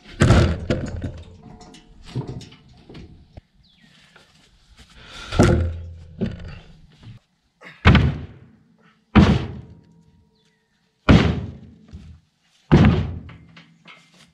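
Heavy wooden beams being shifted by hand on a wooden trailer deck: a loud thunk at the start, a longer scraping slide about five seconds in, then four sharp wooden knocks a second or two apart as the beams bump against each other and the deck.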